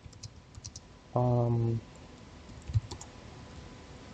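Computer keyboard typing: a quick run of keystrokes, then a single louder keystroke a little before the three-second mark. Just over a second in, a short steady low-pitched hum lasting under a second is the loudest sound.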